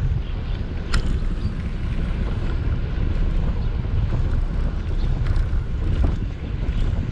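Wind buffeting a GoPro action camera's microphone while riding a bicycle: a steady low rumble, with a couple of sharp clicks, about a second in and again near six seconds.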